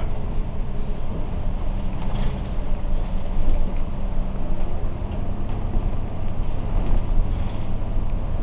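City bus running along the road, heard from inside the cabin: a steady low engine drone with road and tyre noise.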